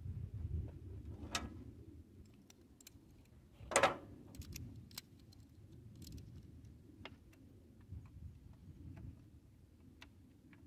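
Metal hand tools clinking and a socket ratchet clicking in irregular short clicks, with one louder metallic clank about four seconds in. The ratchet is being worked on the track tensioner's grease fitting of a mini excavator.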